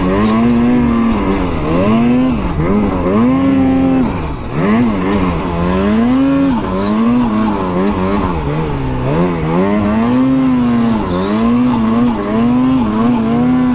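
Snowmobile engine revving up and down continuously, the pitch rising and falling every second or so. The sled has broken rollers in its clutch and is being limped along.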